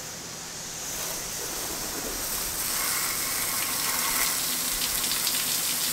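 Garden hose spraying water onto a car's underside, a steady hiss that grows a little louder about a second in, rinsing off Simple Green degreaser.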